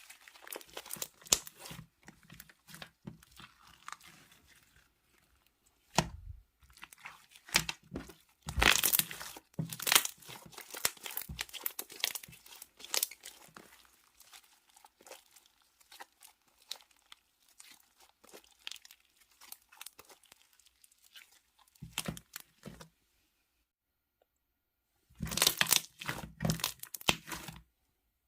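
Slime being squished and pulled by hand: irregular crackling, crunchy pops and tearing sounds. The sounds come in uneven clusters, go almost silent for a couple of seconds, then return in a dense burst near the end.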